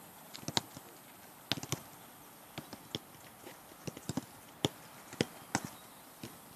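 Footballs being kicked during a passing drill: a series of sharp, irregular thuds, about a dozen, some coming in quick pairs.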